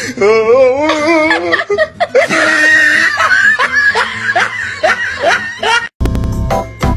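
A cat yowls in long, wavering cries while a person laughs. About a second before the end it cuts abruptly to organ music.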